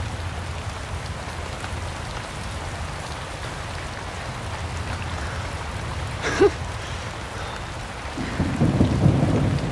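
Steady rain falling, with a low rumble underneath. A short voice-like sound comes about six seconds in, and a rumble of thunder rolls in near the end.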